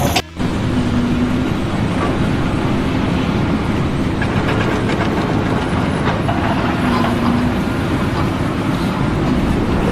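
Steady, loud mechanical rumble with a faint low hum, starting just after a brief break near the start.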